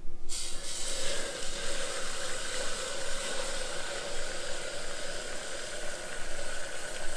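Liquid nitrogen pouring from a dewar's spout into a glass measuring jug, boiling hard as it hits the warm glass, with a steady hiss.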